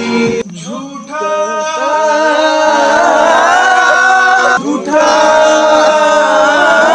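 Several men singing together, holding long wavering notes. The singing breaks off briefly about half a second in and again just before five seconds, then starts over.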